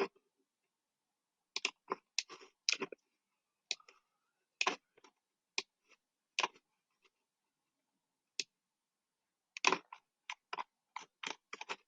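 Computer mouse and keyboard clicks, single sharp clicks at irregular intervals with a quicker run of them near the end.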